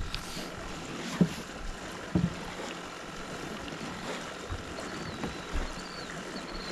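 A few dull knocks and bumps on a boat deck as the fish compartment is opened and reached into, over a quiet background of wind and water; the two clearest knocks come about one and two seconds in.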